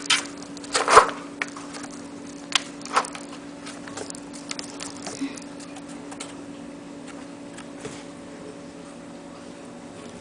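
A cat pawing at the ball in the plastic track of a round cardboard scratcher toy: a quick cluster of sharp clicks and knocks in the first second, two more near three seconds in, then scattered light ticks. A steady low hum runs underneath.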